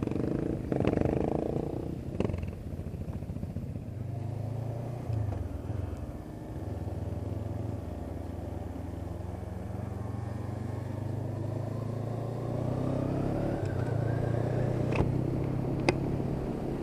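Honda CB500X's parallel-twin engine running under way, its pitch dipping and rising with changes of speed and gear. A faint rising whine builds toward the end, with a couple of sharp ticks near the end.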